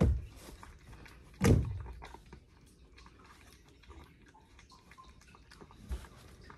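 A small dog eating food from a bowl: faint, irregular chewing clicks, with a brief louder sound about a second and a half in.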